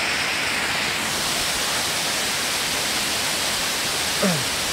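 Steady, even rush of a shallow stream running white over rocks. Near the end a short falling vocal cry cuts in briefly.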